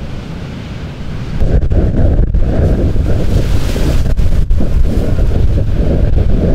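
Ocean waves crashing against a rock riprap wall and spilling over it, under heavy wind rumble on the microphone. Louder from about a second and a half in.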